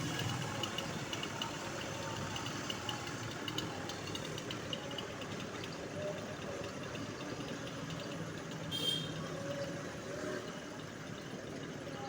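An engine running steadily at low speed, with a brief high-pitched tone about nine seconds in.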